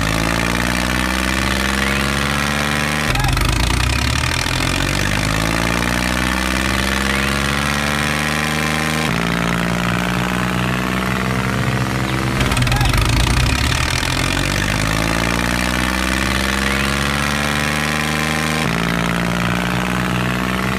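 Engine running with its pitch rising as it revs, then holding steady. The same stretch repeats with abrupt joins every three to six seconds, like a looped engine sound effect laid over the picture.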